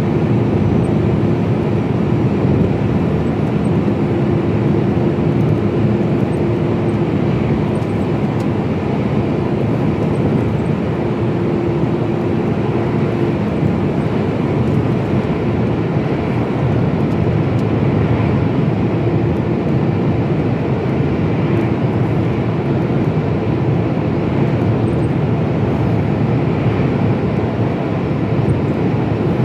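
Mercedes-Benz Actros lorry cruising at a steady speed: an even engine drone mixed with tyre and road noise, heard from inside the cab, with a faint hum that comes and goes.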